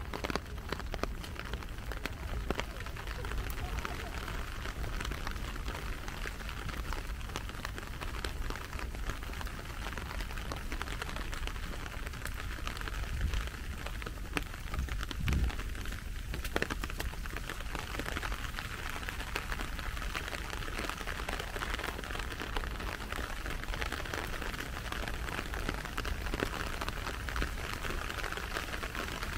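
Steady rain falling, a dense ticking of raindrops, with a single low thump about halfway through.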